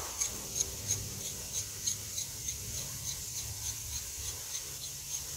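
Steel jam nut being spun by hand along the threaded shaft of a tie rod, giving a light regular ticking about three times a second over a low steady hum.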